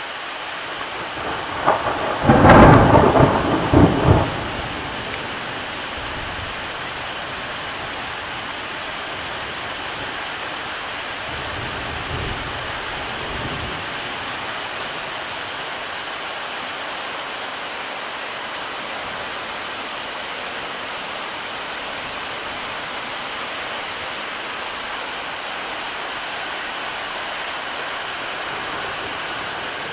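Heavy thunderstorm downpour, rain hissing steadily. A loud thunderclap breaks about two seconds in and rumbles for a couple of seconds. A fainter roll of thunder follows around twelve seconds in.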